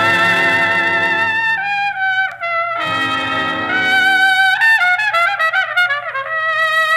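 Solo trumpet with a swing big band and strings, in a 1941 recording. The trumpet holds notes with vibrato. The band drops out under it about one and a half seconds in and again about four and a half seconds in, leaving the trumpet alone to play a quick run of notes.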